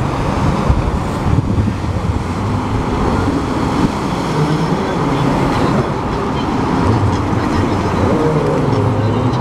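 Jet ski engines running on the water, their note rising and falling as the machines circle.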